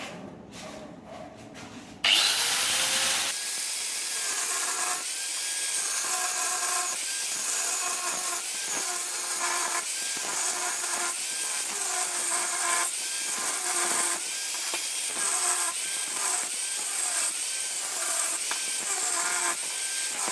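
A few light knocks, then about two seconds in a power cutting tool, such as an angle grinder, spins up and runs steadily into the thick metal tube. Its pitch dips and recovers about once a second as the load on the motor changes.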